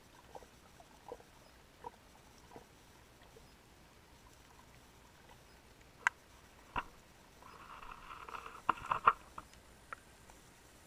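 Sharp clicks heard underwater: a few faint ones in the first few seconds, two louder ones around six and seven seconds in, then a second or so of crackling with clustered clicks about eight to nine seconds in, the loudest part.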